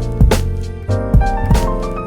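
Background music: an upbeat piano and keyboard tune over bass and a drum kit, with a steady beat.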